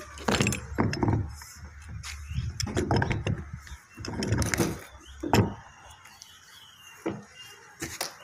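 Steel pipe wrench knocking, rattling and scraping as it is clamped onto a plastic water-tank connector fitting and turned to tighten it. The sound is a run of irregular knocks and rattles.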